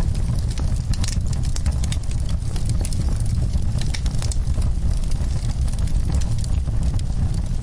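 Wood fire burning, with a steady low rumble of flames and frequent sharp crackles and pops of burning wood.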